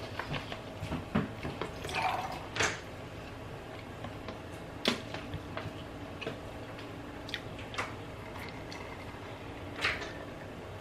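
Close-up eating sounds: wet chewing with scattered lip smacks and mouth clicks, then a sip and swallow from an iced drink near the end.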